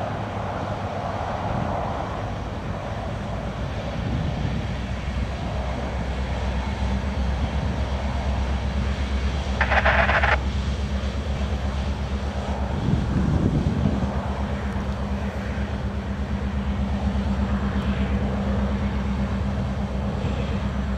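CN SD70M-2 diesel-electric locomotive, with an EMD 16-cylinder two-stroke engine, working as the rear pushing unit of a loaded coal train: a steady low engine drone. A brief higher-pitched sound cuts in about ten seconds in.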